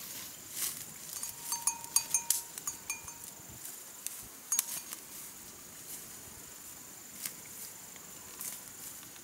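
A small bell clinking irregularly in short clusters, with brief ringing tones. It is busiest in the first few seconds and again about halfway through. A thin, steady, high insect whine runs underneath.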